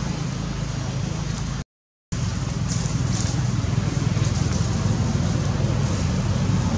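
Steady outdoor background noise, a low rumble under an even hiss, cut by about half a second of dead silence just under two seconds in.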